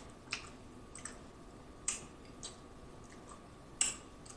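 Close-miked mouth sounds of a person eating seafood: chewing with a few short lip smacks and mouth clicks, spaced about a second apart, the loudest nearly four seconds in.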